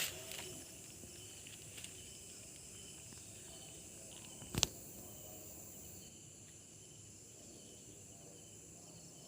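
Night insects, crickets among them, chirring steadily, with a single sharp crack about four and a half seconds in.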